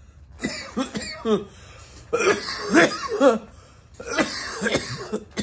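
A man coughing hard in three bouts of several rasping coughs each, from a big hit of cannabis smoke from a pipe.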